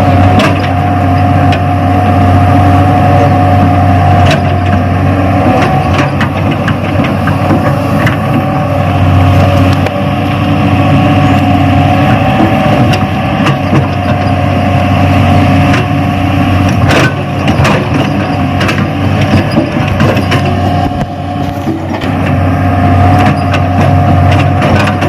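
Radio-controlled model Hitachi excavator running with a steady mechanical hum and whine, with scattered clicks and scrapes as it works a pile of soil.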